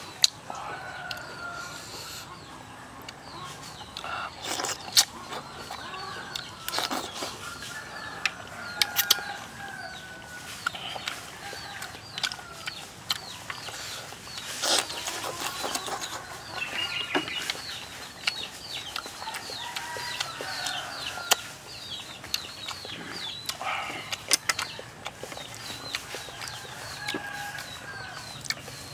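Chickens clucking in many short calls, with sharp clicks and taps scattered among them.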